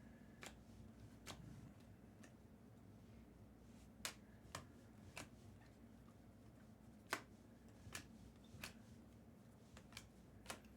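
Trading cards flipped through one at a time by hand, each giving a short, sharp click, about a dozen at uneven spacing over a faint steady hum.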